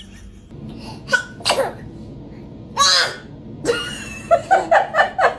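A baby sneezing, with short sharp breaths before it and the loudest sneeze about three seconds in, then a quick run of laughter near the end.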